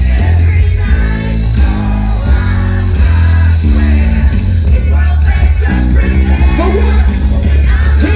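Loud live band music through a PA system, with a heavy bass line, bass guitar and keyboard, and a male vocalist singing and shouting over it into a handheld microphone.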